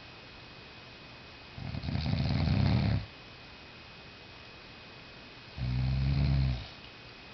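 Snoring: two long snores, each a low buzzing breath. The first comes about one and a half seconds in and grows louder over about a second and a half. The second comes about five and a half seconds in and is shorter and steadier.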